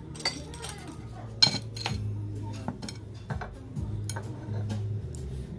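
Cutlery clinking and tapping against dishes as squid tteokbokki with melted cheese is dished into a bowl: a scatter of sharp clinks, the loudest about a second and a half in, over a low steady hum.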